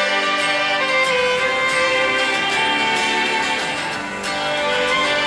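Background music: an instrumental break in a song, with a fiddle carrying the melody in long held notes over accompaniment.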